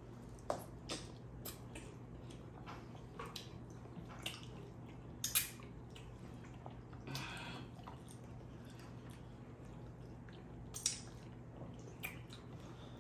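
Close-up eating sounds of two people eating amala and soup with their hands: soft wet chewing and lip smacks with scattered short clicks, over a steady low hum.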